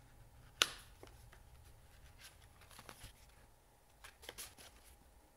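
Handling of stiff paper and card: a folded instruction booklet and a card insert being lifted and unfolded, with one sharp tap about half a second in, then soft scattered rustles and light taps.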